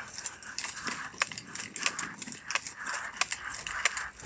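Leaves and grass rustling and scraping against the camera holder, with irregular clicks and scuffs of footsteps as they push through a planted bed.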